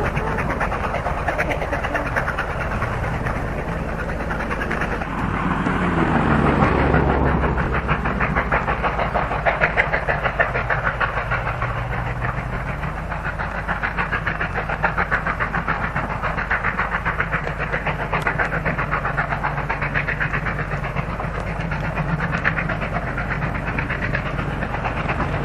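A train running along the line, with a dense, rapid rhythmic clatter and a brief falling tone about six seconds in.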